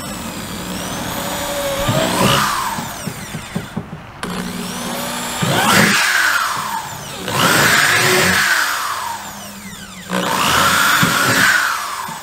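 Electric drill boring drain holes through a plastic 55-gallon drum, in about four separate runs. The motor whine rises and falls in pitch with each hole.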